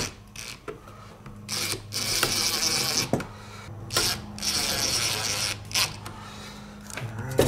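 Cordless impact driver driving small screws into a robot's thin armor panels, running in several short bursts with pauses between.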